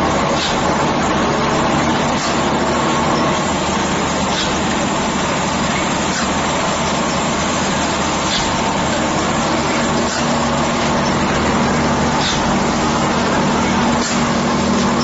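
Egg tray pulp-moulding machine running: a loud, steady mechanical hum with a short hiss about every two seconds.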